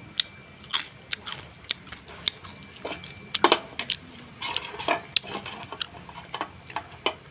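Crisp grilled sun-dried scad crunching as it is eaten: a run of sharp, irregular crackles, about two a second.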